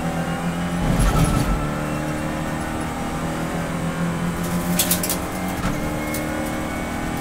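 Renault Clio Cup race car engine heard from inside the cockpit, running under full throttle as the car accelerates and upshifts twice. There is a low thump about a second in and a few sharp clicks around five seconds in.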